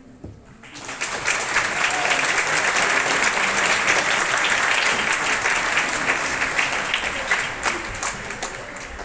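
Audience applause, breaking out about a second in and dying down near the end.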